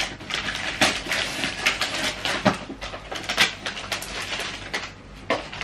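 Gift wrapping paper and plastic packaging rustling and crinkling in the hands, with irregular sharp crackles, as a present is unwrapped and a letter taken out.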